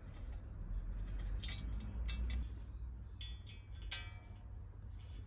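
Small metal screws and a thin metal tool clicking and scraping against a metal sewing-machine flatbed table as it is screwed on, with one sharp, ringing metallic clink about four seconds in.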